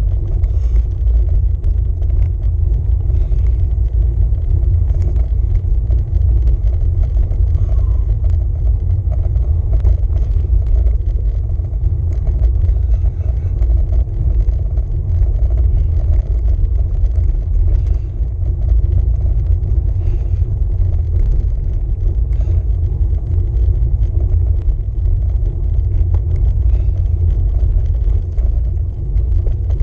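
Steady low rumble of wind buffeting and road vibration picked up by a camera mounted on a road bike's handlebars as it rolls along a rough lane, with faint scattered rattles.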